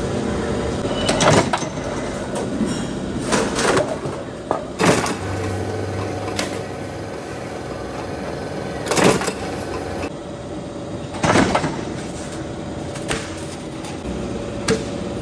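Motor-driven guillotine shear cutting sheet steel: a steady machine hum with about five sharp metallic clanks of the blade coming down, a few seconds apart.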